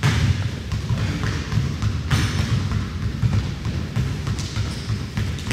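Basketball game on a gym court: a run of thuds from the ball and players' feet over a steady low rumble of the hall.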